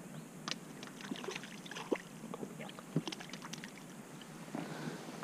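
Hooked crucian carp splashing at the surface beside an inflatable boat as it is played in: scattered small water splashes and ticks, the sharpest about two and three seconds in.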